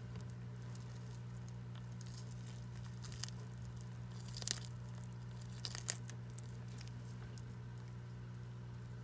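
Horsfield tortoise biting and tearing a hand-held leafy green, with a few crisp crunches about a third of the way in and around the middle, over a steady low hum.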